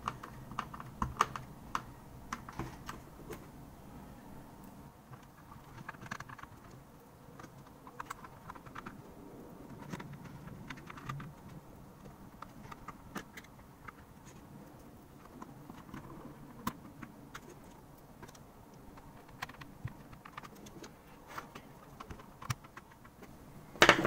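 Keychron K4's bare optical red key switches being pressed and seated into the switch plate by hand: scattered light plastic clicks and taps at an irregular pace.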